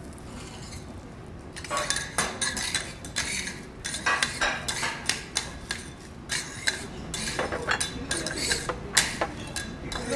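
Metal spatula scraping and clinking on a steel teppanyaki griddle, pushing fried garlic chips together. It comes in irregular strokes, starting about two seconds in.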